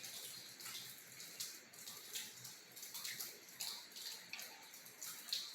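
Rain dripping and splashing in irregular drops, with a few brief falling chirps among them.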